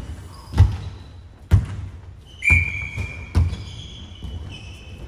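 A ball bouncing on a hard floor four times, about once a second. About halfway through comes a high-pitched squeal lasting about two seconds.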